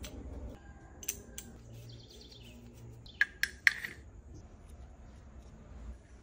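Light metallic clicks of a small helicoil installation tool's parts being handled and fitted together, three in quick succession a little past halfway. Faint bird chirps in the background.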